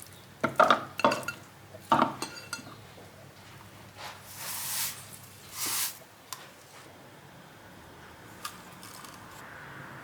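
Dishes and metal utensils clinking against each other in a kitchen: several sharp clinks in the first two seconds, then two longer brushing swishes about midway.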